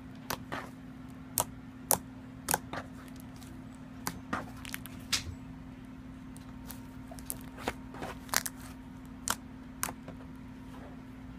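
Homemade white glue slime being pressed, stretched and folded by hand, giving off irregular sharp clicks and pops, about one or two a second, from its bubbly, clicky texture. A steady low hum runs underneath.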